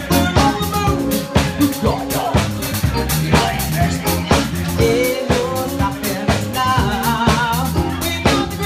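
Live soul band playing: keyboard and synth with a drum kit keeping a steady beat.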